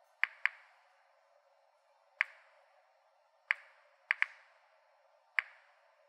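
Series 900 mini-monitor Geiger counter clicking seven times at random, irregular intervals, two pairs coming close together; each is a sharp click with a short ringing tail. Each click is a count of radiation from a heap of bananas, whose natural potassium-40 is radioactive.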